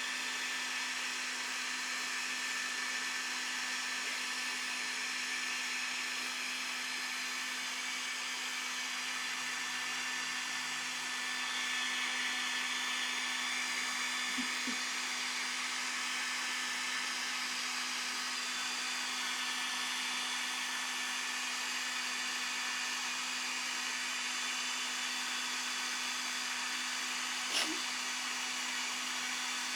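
Handheld electric hair dryer running steadily: an even rush of air over a constant motor hum. Two brief faint knocks, one midway and one near the end.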